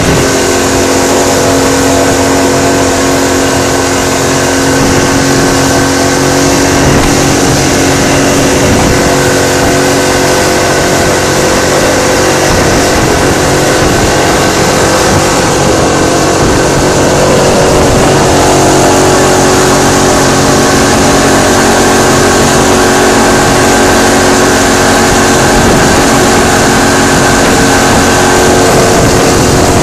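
Outboard motor on an inflatable boat running steadily at speed, over the rush of its churning wake.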